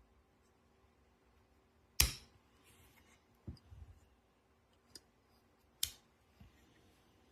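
A few sharp clicks and softer knocks of handling, the loudest about two seconds in and another sharp one near six seconds.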